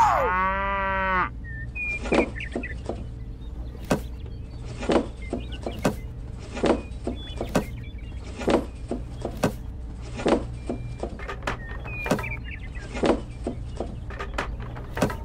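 A cow's moo, falling in pitch, at the start. Then wooden sticks knock as they are laid one at a time into a small toy cart, about one knock a second.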